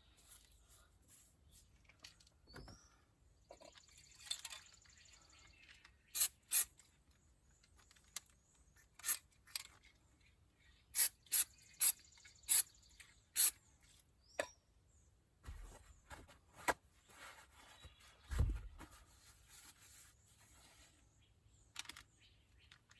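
Scattered sharp clicks and ticks over a quiet background, with a dull low thump about eighteen seconds in.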